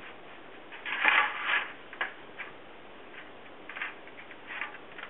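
Olive oil being rubbed across a metal baking tray with a hand-held pad to grease it: a series of short swishing strokes, the loudest about a second in, then lighter ones spaced out after.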